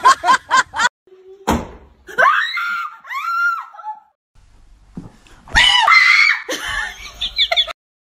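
Startled screaming and laughter from people being pranked, in high shrieks that bend up and down in pitch, with a quick run of laughs at the start and a sharp knock about a second and a half in.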